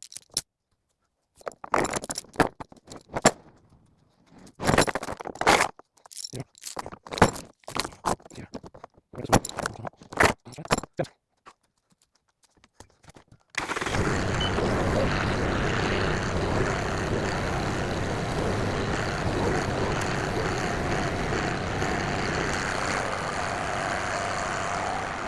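Metal chain clinking and clanking in irregular bursts as it is wrapped around the post for a hoist point. After a short gap, a steady noise begins about halfway through and runs on evenly.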